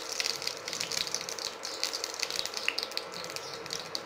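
Mustard seeds sizzling in hot sesame oil, a dense, irregular run of small crackles as they start to splutter.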